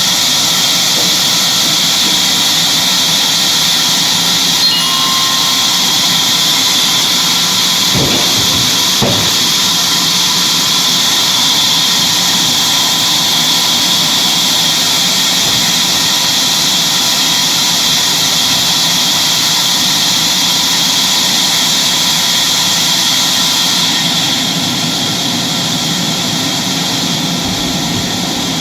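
Sawmill machinery running steadily: a loud, continuous hissing whir with a few steady tones over it. Two light knocks come about a third of the way in, and the sound eases slightly near the end.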